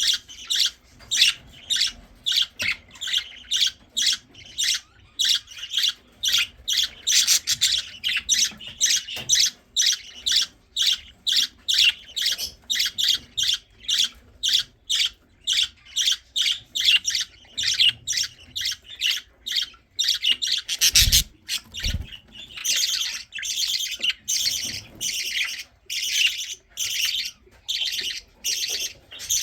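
Baby budgies (budgerigar chicks) begging for food: a continuous run of short, raspy squawks, two or three a second, the call of hungry chicks asking to be fed. Two low thumps sound about two-thirds of the way through.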